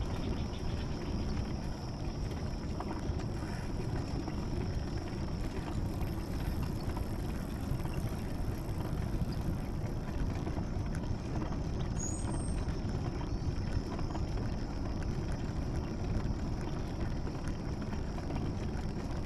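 Steady low rumble of wind and movement noise on a moving camera's microphone, with a faint steady high-pitched drone above it and a short high chirp about twelve seconds in.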